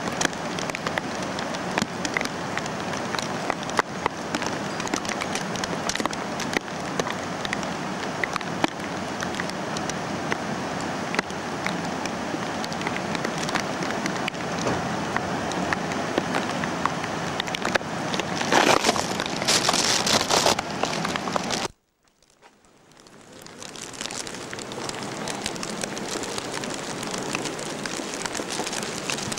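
Steady wet hiss of water with scattered small crackles, swelling a little louder about 19 s in. It cuts out suddenly about 22 s in and fades back up over the next two seconds.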